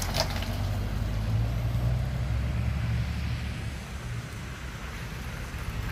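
Low engine rumble of a motor vehicle close by. It grows louder over the first couple of seconds and then eases off toward the end.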